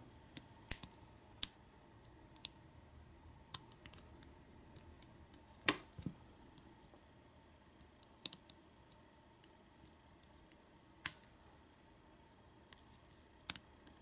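Scattered, irregular sharp metallic clicks, roughly one a second, of a hook pick working the pin stack of an American Lock 1100 padlock under tension, as pins set. The loudest clicks come about six and eleven seconds in.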